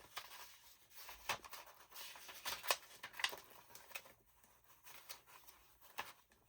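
Old paper and envelopes being handled: soft rustling with scattered light taps and crinkles.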